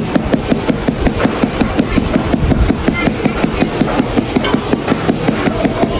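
Rubber mallet tapping a ceramic floor tile in rapid, even strokes, about five a second, bedding it down level into the mortar.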